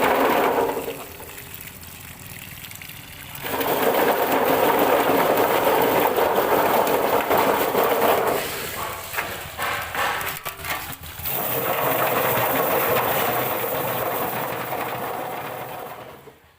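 Ginger washing machine running with water gushing and splashing through it. The rush drops away twice, briefly about a second in and again past the middle, then fades out at the end.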